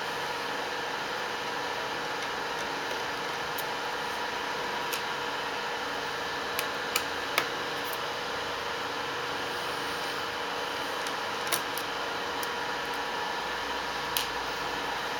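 Steady background hiss with a faint hum, broken by a few small, faint clicks and taps from a small screwdriver backing out the laptop LCD panel's screws and the screws being set down on the table.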